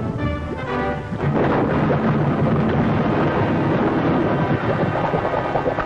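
Cartoon sound effect of depth charges sinking underwater: a continuous dense rumble that takes over after about a second of orchestral music.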